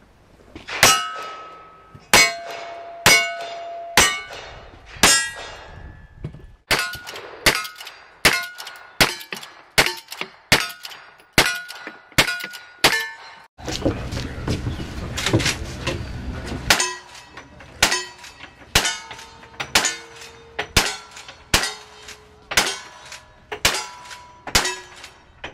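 Cowboy action shooting fire: single-action revolver shots and then rapid long-gun shots, each crack followed by the ring of the struck steel target. The revolver string is slower, about a second between shots, the later strings come near two shots a second, and a few seconds of low rumbling noise sit between strings in the middle.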